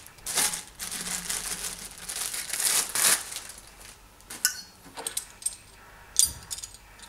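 Plastic packaging crinkling and rustling as it is handled, for about three seconds. Then a few light clicks and a soft knock as small metal parts are picked up and set down.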